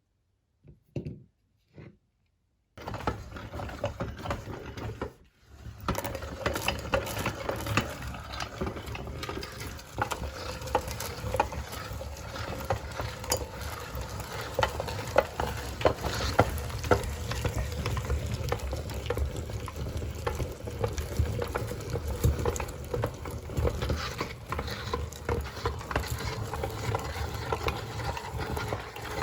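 Meat grinder crushing crunchy frozen ice cream: a dense crackle of small cracks and crunches over a steady low hum. It starts about three seconds in, stops briefly about two seconds later, then runs on.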